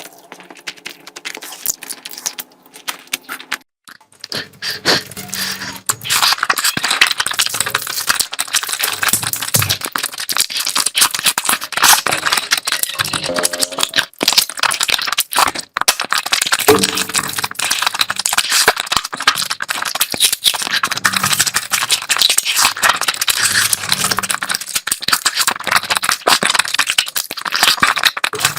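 Close-miked eating: dense wet chewing, lip smacking and crunching of curry and meat, loud from about four seconds in.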